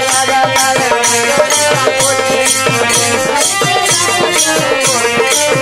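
Instrumental interlude of a Bhojpuri devotional song: a melody instrument over a steady drum beat with a shaker, and no singing.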